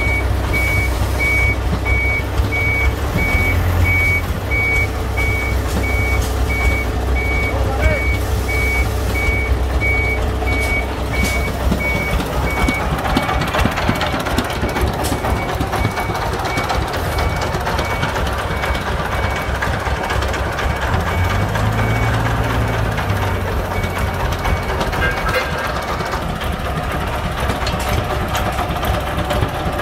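A vehicle reversing alarm beeping in an even run of short, high, single-pitch beeps, stopping about five seconds before the end. Under it, diesel engines run steadily with a low hum, among them the công nông's exposed single-cylinder diesel.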